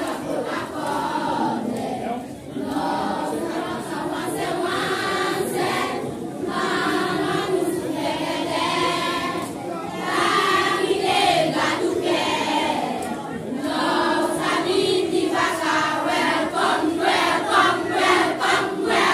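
A group of children singing together as a choir, in continuous phrases with brief pauses between them.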